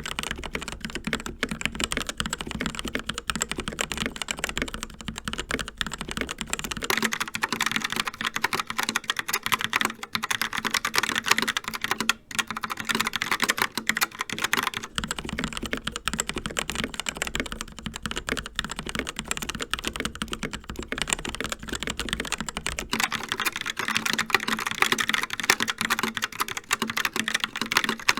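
Fast continuous typing on mechanical keyboards, a dense patter of key strokes. The CZC Reaper with TTC Red linear switches and the Logitech Pop Keys with Logitech TTC Brown tactile switches take turns, with changes about 7, 15 and 23 seconds in.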